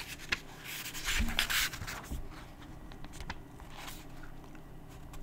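Paper pages of a book being handled and turned: soft rustling and small clicks, with the loudest rustle about a second in.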